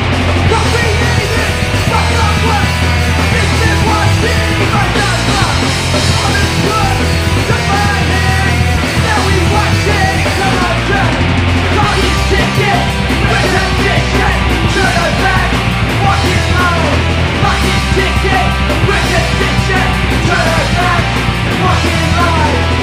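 Hardcore punk recording: a full band playing with a shouted vocal over it.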